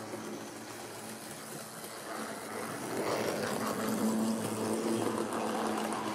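HO-scale DF50 diesel locomotive model and its cars running along the track: a steady motor hum with wheels clattering on the rails, louder from about three seconds in as the train comes past.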